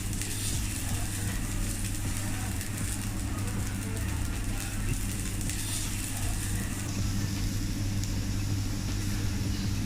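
Food sizzling on a teppanyaki griddle with a steady crackling hiss, over the constant low hum of the griddle's exhaust ventilation.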